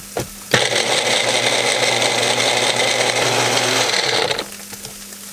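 Magic Bullet personal blender running, blending a creamy liquid in its cup; the motor starts about half a second in, runs steadily for about four seconds, and stops near the end.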